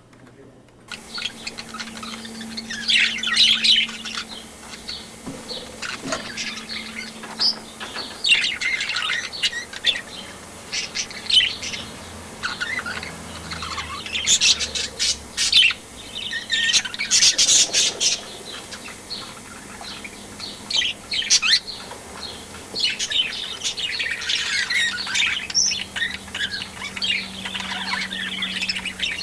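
Newborn nestling birds chirping and squawking, with shrill high calls in clusters every second or two.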